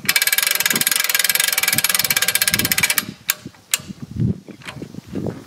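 A hand crank on a boat trailer's front post being turned, its ratchet clicking in a fast, even rattle for about three seconds before it stops abruptly. A few separate clicks and knocks of metal follow.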